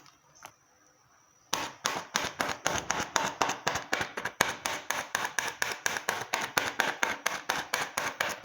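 Plastic wrap stretched over a bowl of minced meat being pricked over and over, a quick run of sharp taps at about four to five a second, starting about a second and a half in. The holes let steam through so the meat cooks.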